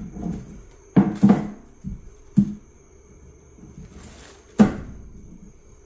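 Several sharp knocks and clinks, the loudest about four and a half seconds in, as small parts are handled in and on a bare outboard engine block on a bench.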